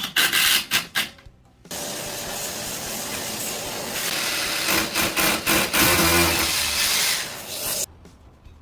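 A few sharp knocks, then a tool runs with a steady hissing noise for about six seconds and cuts off suddenly.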